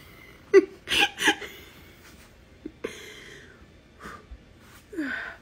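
A woman's breaths and short breathy vocal sounds: a quick cluster about a second in, then a short falling vocal sound near the end.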